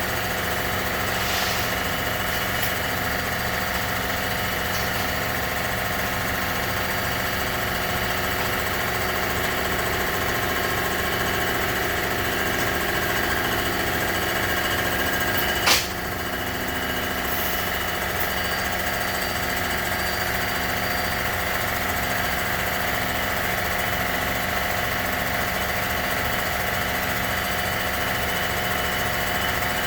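Shop machine tool running steadily under power with a constant mechanical hum and a regular pulsing note. A single sharp click comes about halfway through.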